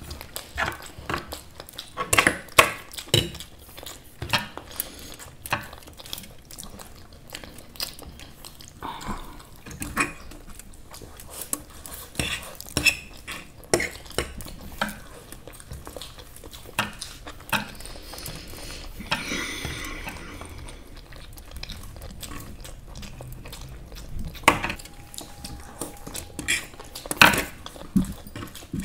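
Cutlery clinking and scraping against plates as masala noodles are eaten, in irregular clinks and scrapes.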